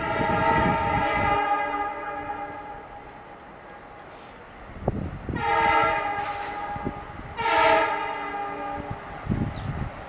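EMD WDP4 diesel locomotive's multi-tone air horn. A long blast fades out about two seconds in, then two more blasts sound at about five and a half and seven and a half seconds. The locomotive's engine rumble grows near the end as it approaches.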